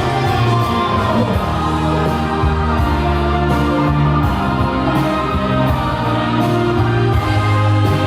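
Song with full band accompaniment and sustained, layered singing voices without clear words.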